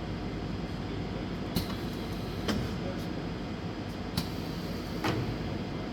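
Steady hum of workshop machinery with four short, sharp clacks spread across a few seconds.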